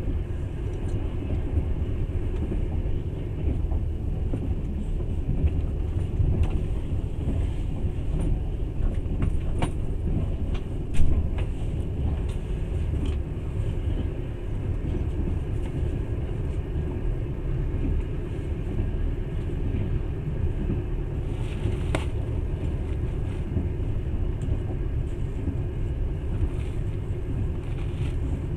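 Passenger train running along the track, heard from inside the carriage: a steady low rumble of wheels on rails with scattered faint clicks, a sharper knock about eleven seconds in and another click a little past twenty seconds.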